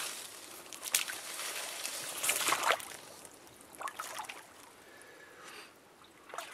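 Rustling of tall grass and shrub branches as a person pushes through them on foot, in several short swishes about 1, 2.5 and 4 seconds in, then quieter.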